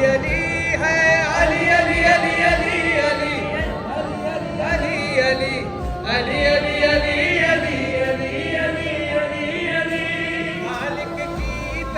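A man singing a mournful Shia devotional lament in a wavering, ornamented voice, holding long notes, with a few low thuds underneath.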